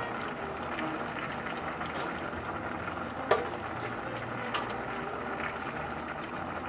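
Paella broth simmering steadily in a wide paella pan, a constant bubbling hiss. A single sharp clink about three seconds in, and a lighter one about a second later.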